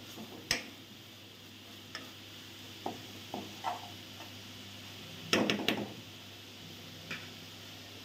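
Wooden spatula stirring and scraping minced meat and capsicum frying in a metal pot, with a faint steady sizzle underneath. The scrapes come in scattered strokes, with a louder cluster a little after five seconds in.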